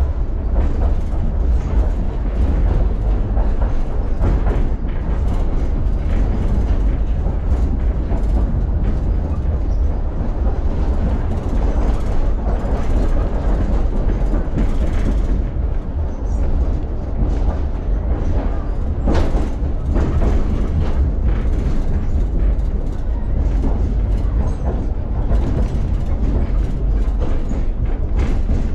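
Tram running along its tracks, heard from inside the car: a steady low rumble of wheels on rail with an occasional click, a sharper one about two-thirds of the way through.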